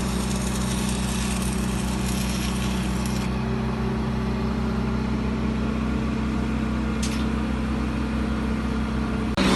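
An engine idling steadily, with a hiss over it that stops about three seconds in.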